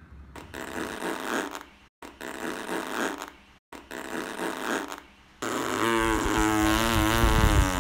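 Comic fart noises: three short raspy ones, then a longer, louder, wavering one near the end.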